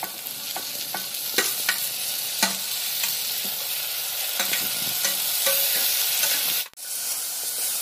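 Chopped tomatoes sizzling in hot ghee with fried onions in a clay pot, the sizzle growing louder as they go in. A spatula clicks and scrapes against a steel bowl and the pot in the first few seconds, and there is a brief break in the sound near the end.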